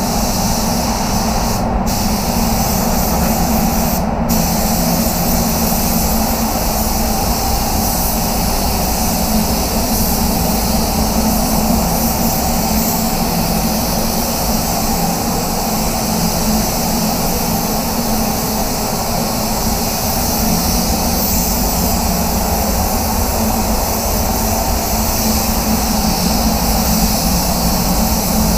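Steady rushing air in an automotive spray booth: the booth's extraction fans with the hiss of a compressed-air spray gun laying primer on the car. The high hiss cuts out briefly twice in the first few seconds, where the gun's trigger is let go.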